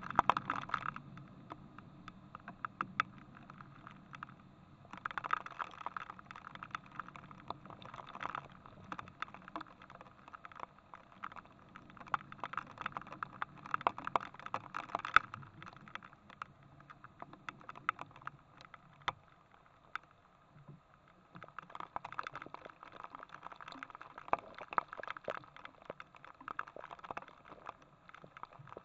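Hail falling, with dense, irregular sharp ticks of hailstones striking. It comes in waves, easing off for a few seconds past the middle and picking up again.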